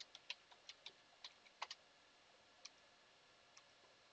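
Faint key clicks of a computer keyboard being typed on: a quick run of about a dozen keystrokes in the first two seconds, then a few single ones.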